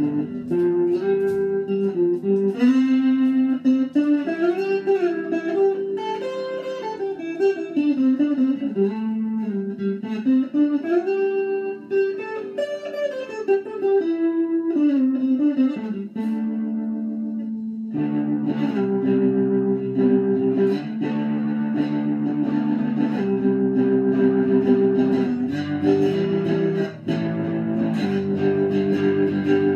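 Electric guitar played solo: a single-note melody with sliding and bending pitches, then from about 18 seconds in, fuller repeated chords.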